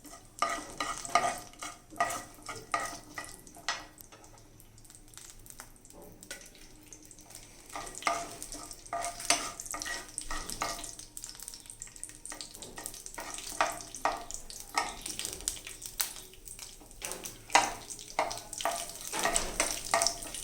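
Chana dal and urad dal frying in oil in a kadai, sizzling, with a spatula stirring and scraping against the pan in quick strokes. The stirring pauses for a few seconds early on, then the sizzle and scraping pick up again.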